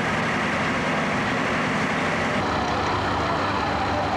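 Fire truck engines running with a steady rumble and hum. Near the end a siren starts to wail, its pitch wavering and then rising.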